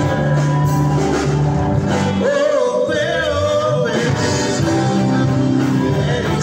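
Live gospel band playing, with electric guitar, bass, keyboard and drum kit behind a male lead singer. About two seconds in, he holds one long wavering note for nearly two seconds.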